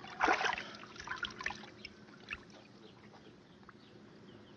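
A fish splashing and thrashing at the water's surface: a burst of splashing about a quarter second in, then smaller splashes and drips that die away.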